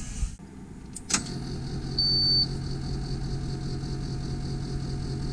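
Diesel school bus with its ignition switched on for glow-plug warm-up, the 'wait to start' lamp lit: a click about a second in, then a steady low hum, with a short high-pitched warning beep about two seconds in.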